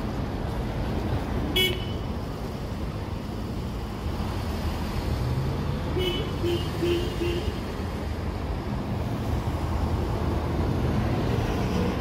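City street traffic, a steady low rumble of passing cars, broken by a short beep about a second and a half in and a run of four quick beeps about six seconds in.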